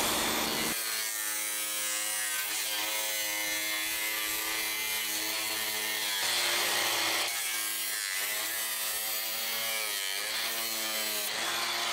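Small cordless power tool buzzing as it cuts a grey PVC pipe. It starts about a second in and stops just before the end, its pitch wavering as the blade bites.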